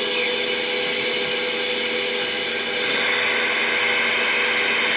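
Galaxy 98VHP CB radio's receiver giving out steady static hiss through its speaker, with a steady tone under the hiss; the hiss grows a little louder about three seconds in.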